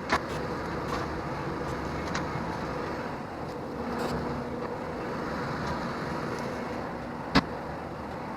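Bobcat T770 compact track loader's diesel engine running steadily under work. A sharp knock comes just after the start, and a louder one near the end.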